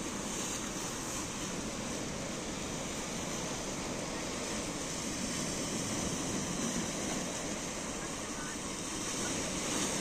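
Small waves breaking on a sand-and-pebble beach and washing against a rock groyne: a steady wash of sea noise.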